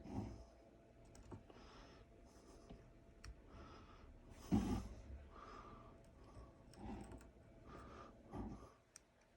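Faint, irregular scraping strokes of a hand tool cutting into a wooden rifle stock, roughly one stroke a second, the loudest about halfway through.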